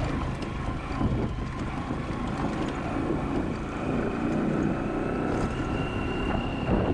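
A vehicle's engine running steadily as it travels along a rough road, with wind noise on the microphone.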